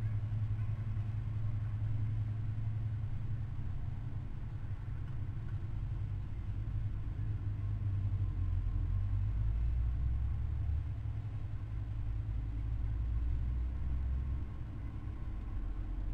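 Steady low hum and rumble under a faint hiss, with no distinct sounds in it.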